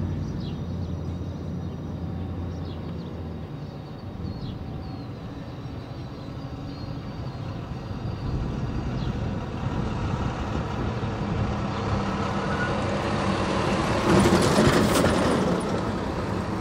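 Ex-Illinois Central GP11 diesel locomotive moving slowly with a steady low engine hum, and a few bird chirps in the first few seconds. About fourteen seconds in, a loud hiss of air lasts a second or so.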